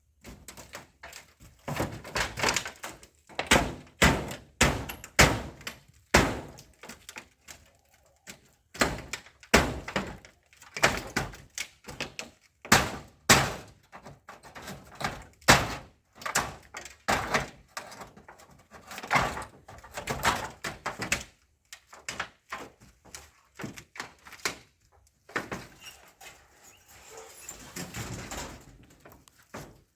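Hammer blows and knocks in an irregular series while an outdoor pit latrine is being dismantled, some strikes much louder than others, easing off into a quieter stretch of rough noise near the end.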